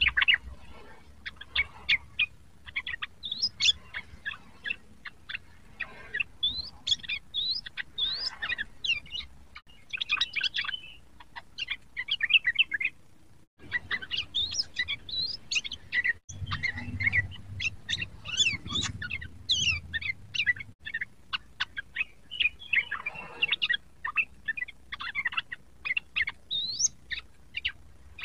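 Yellow-vented bulbul (trucukan) singing in rapid strings of short chirps and whistled notes, a fast chattering run of song.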